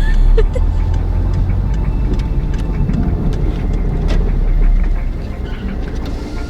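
Car on the move: a steady low road-and-engine rumble that eases off about five seconds in as the car slows.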